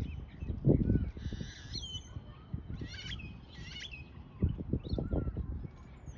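Small birds chirping with short, curling whistled calls, mostly in the first half. Low rumbling gusts of wind on the microphone come about a second in and again after four seconds.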